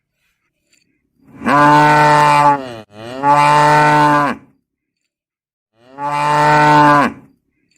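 A cow mooing three times, each a long, steady, low call of about a second and a half. The first two come almost back to back, and the third follows after a pause.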